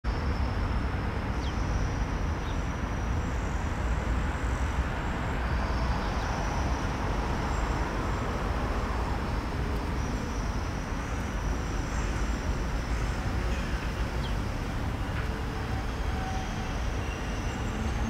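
Steady low rumble of city traffic, with faint high bird chirps now and then.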